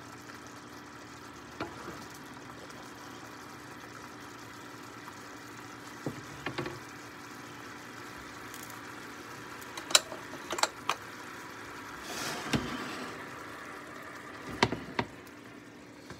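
Mushroom sauce simmering in a stainless frying pan, a steady low bubbling hiss, with scattered clinks and knocks of a ladle and the pan against a plate as it is served, the sharpest about ten seconds in.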